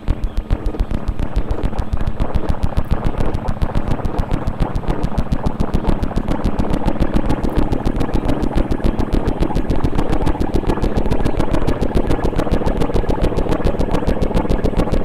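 Experimental electronic music: a fast, even pulsing beat over steady droning synthesizer tones.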